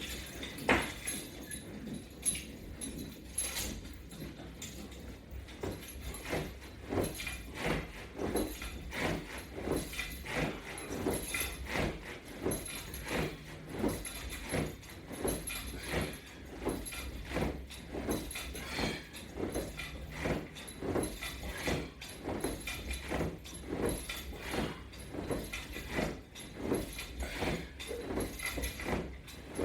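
A man breathing out hard with each crunch of a strap-assisted abdominal exercise, a short effort breath about once a second in a steady rhythm.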